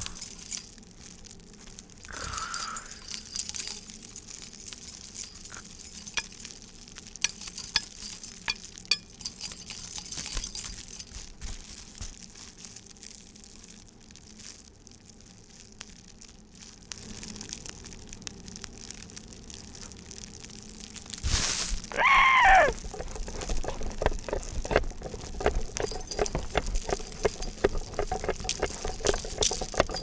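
Hand-made foley effects: scattered small clinks, jangles and rustles, then about two-thirds of the way through a loud falling squeal, followed by a quick run of light taps and patter.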